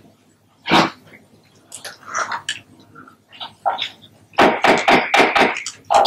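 Scattered knocks, taps and rustles of handling at a desk microphone, with a quick run of knocks about four and a half seconds in.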